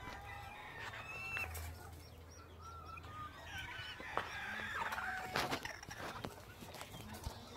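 Chickens clucking and calling softly, a few short calls spread through, with a few light knocks about two-thirds of the way in.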